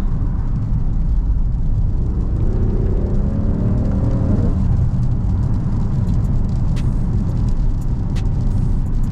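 Mercedes-AMG GLC 63 S twin-turbo V8 heard from inside the cabin over a steady low road rumble; about two seconds in, the engine note climbs under acceleration for a couple of seconds, then falls away.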